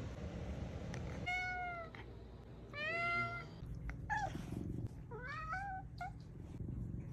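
Tabby house cat meowing four times: two arched meows rising and falling in pitch, a short one, then a longer wavering meow near the end.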